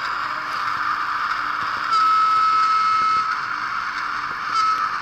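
Model Class 09 0-6-0 diesel shunter running slowly on curved model track, with a steady running noise. About two seconds in a clear high steady tone sounds for about a second and a half, and a brief one follows near the end.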